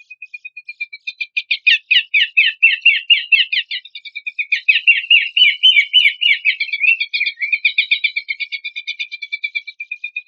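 Pelanduk semak (Horsfield's babbler) singing: a fast, unbroken string of short, chattering notes that sweep downward in pitch. The song gets loud about a second and a half in.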